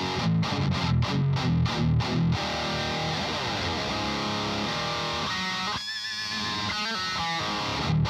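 Electric guitar played through the ThisHeavyEarth Grim 3 gain pedal: distorted metal riffing, with tight chugs and abrupt stops over the first two seconds or so, then held notes, a wavering high note with vibrato about six seconds in, and chugging again at the end.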